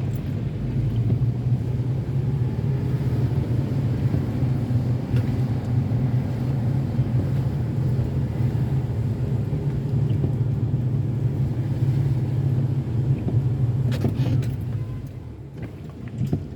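Car being driven, a steady low rumble of engine and road noise that eases off near the end.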